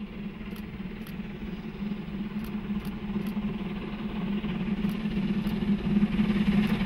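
LMS Jubilee class three-cylinder 4-6-0 steam locomotive 45596 Bahamas approaching at speed with its train, its running sound growing steadily louder.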